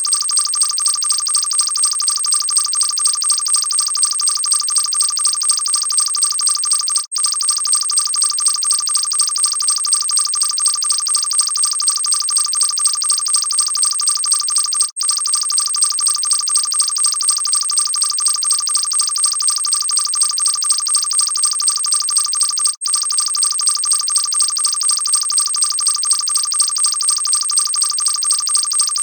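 Electronic science-fiction alarm beeping fast and continuously, a shrill pulsing warning tone. It breaks off for an instant three times, about every eight seconds.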